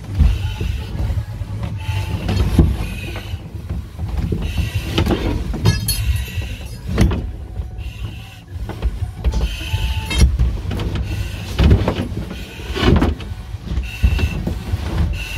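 Firefighter's self-contained breathing apparatus hissing with each breath, a short hiss every second or two, over a steady low hum. Knocks and scrapes from the air cylinder and gear bumping against the plywood passage and metal bars are mixed in.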